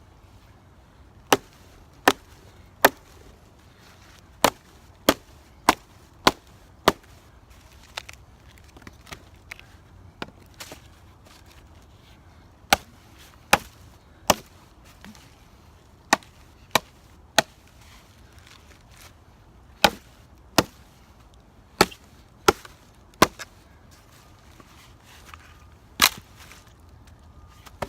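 Hatchet chopping into a wooden log: sharp blows in quick runs of two to five, about one and a half a second, with short pauses and a few lighter knocks between runs.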